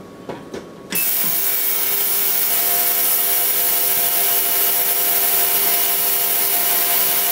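Benchtop ultrasonic cleaner running in turbo mode: a loud, steady hissing buzz with several steady tones in it, starting suddenly about a second in. The bath is working corrosion off a water-damaged phone's circuit board.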